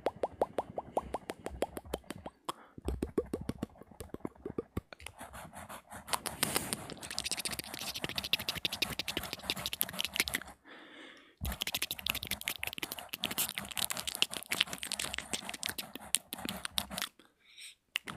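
ASMR mouth sounds: rapid clicking and smacking of lips and tongue, in several runs broken by short pauses.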